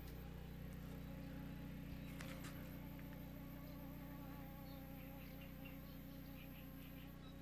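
An insect, like a fly, buzzing steadily and faintly close by, with a few faint bird chirps near the end.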